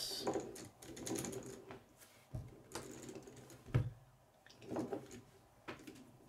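Plastic K'nex parts clicking and rattling as a built K'nex model is handled and turned on a wooden table, with two louder knocks about two and a half and four seconds in.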